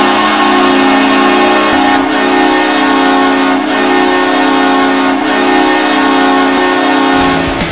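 Hockey goal horn sounding: one deep, steady air-horn chord held for about seven seconds, with slight breaks about every second and a half. It stops near the end as loud rock music comes in.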